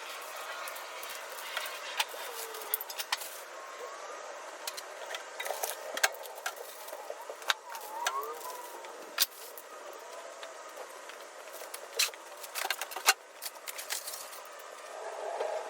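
Unpacking a boxed tool cart: packaging rustling and scraping, with scattered sharp clicks and knocks of parts being handled and a few short squeaks.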